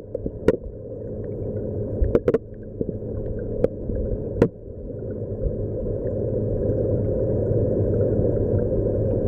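Muffled underwater noise, a steady low rush of water that slowly builds, broken by several sharp clicks in the first half.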